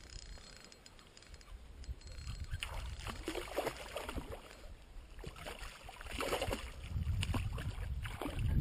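A hooked pike thrashing at the water's surface, splashing again and again from about two and a half seconds in. A low rumble builds near the end.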